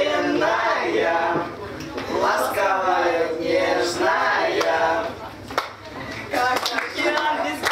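Teenage voices, a girl together with boys, singing or chanting a song in sustained, gliding notes.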